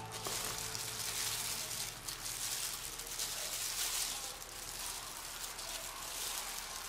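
Crinkling and rustling of a plastic food glove as boiled chicken meat is torn off the carcass by hand, a soft hiss that swells and fades every second or so.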